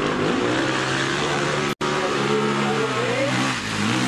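Motorcycle engine revving hard under load. The pitch climbs, holds high and steady, and cuts out for an instant about two seconds in, then drops and climbs again near the end.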